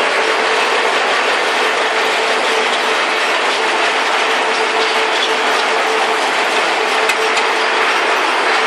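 Conveyor and hopper machinery of a granule processing line running steadily: a loud, continuous mechanical rattle with a steady hum under it.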